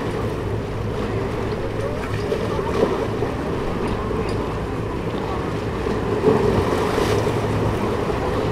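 Steady wind and surf washing at the shoreline, with a low steady hum from the departing cruise ship Harmony of the Seas.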